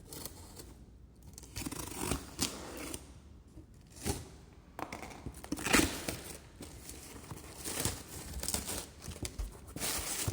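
Computer-part packaging being opened by hand: irregular tearing and crinkling of plastic and cardboard, with several sharp handling clicks.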